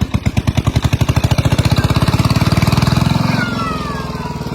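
A small engine starting, its firing pulses quickening as it speeds up, then settling to a steady, lower idle about three and a half seconds in.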